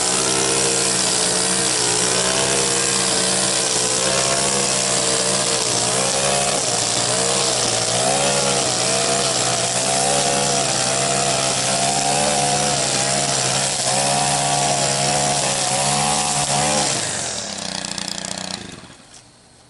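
Gas string trimmer spinning .080 line runs at full throttle through thick, tall grass along a border. Its pitch wavers as the grass loads the line. About three seconds from the end the throttle is released and the engine winds down until it is nearly quiet.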